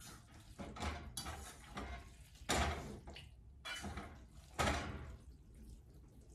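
A utensil knocking and scraping against a stainless steel pot while sauced spaghetti is tossed and combined, in scattered irregular knocks; the two loudest come about two and a half and four and a half seconds in.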